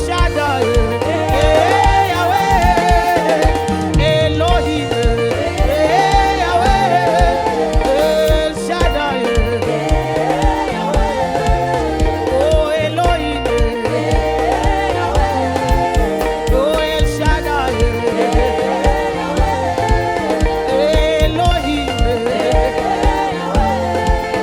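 Live gospel praise-and-worship music: voices singing over bass, keyboard and drums with a steady beat.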